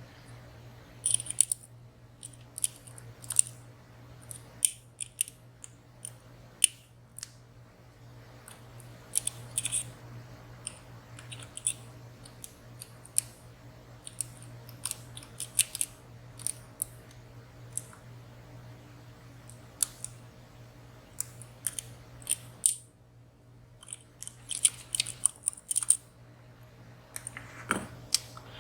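Lock pick and tension wrench working inside a WSW W10 high-security padlock: irregular light metallic clicks and ticks as the pick works the pins and sliders, with a few quick flurries of clicks, over a faint steady hum.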